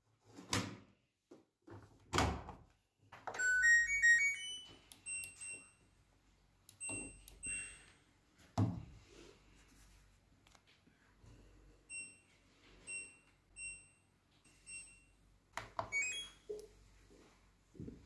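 Front-loading washing machine being set up: two knocks as the detergent drawer is shut, then a quick run of stepped electronic tones from the machine. Single short beeps follow as buttons are pressed to set the programme and time, and another brief run of tones comes near the end.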